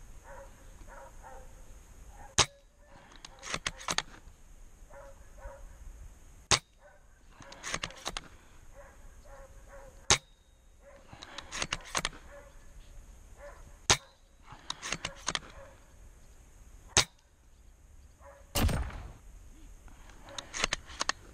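Spring-powered Double Bell VSR airsoft sniper rifle firing five times, a sharp snap every three to four seconds. After most shots, about a second later, comes a short run of clicks as the bolt is cycled. A dull thump near the end.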